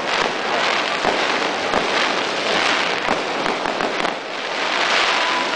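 Fireworks crackling: a dense, continuous rattle of rapid small pops and bangs, easing slightly about four seconds in.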